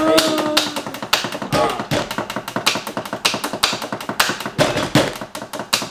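Hands drumming a quick, steady beat on a tabletop, several sharp taps a second.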